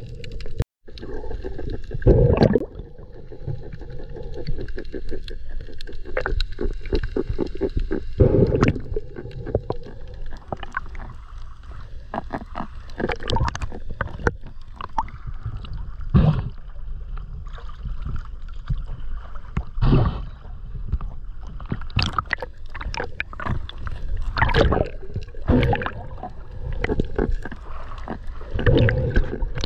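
Underwater sound as picked up by a camera in a waterproof housing: a muffled rumble of water with irregular knocks and thumps, several of them loud. A faint steady hum sits under the first few seconds.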